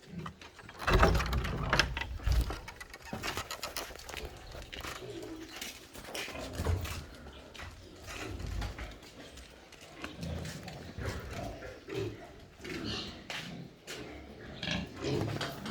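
Pigs grunting at irregular intervals, loudest a second or two in.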